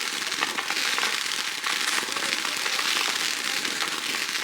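Consumer fireworks crackling: a dense, steady stream of many small pops and crackles, with no single big bang.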